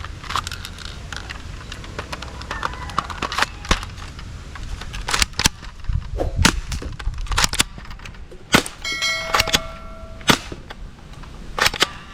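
Toy sniper gun shots: sharp cracks at irregular intervals, with a short electronic tone about nine seconds in.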